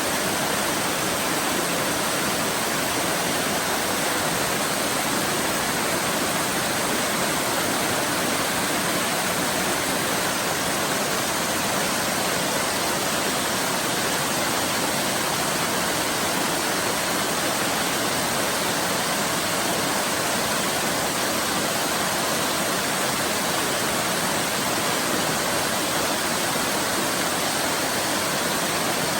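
Waterfall: falling water in a steady, unchanging rush.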